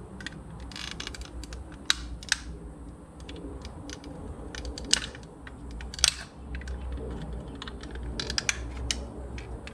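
Small screwdriver prying at the plastic tabs on the back cover of a Mazda MX-5 dash switch panel, making irregular sharp plastic clicks and scrapes, with a few louder snaps about two, five and six seconds in.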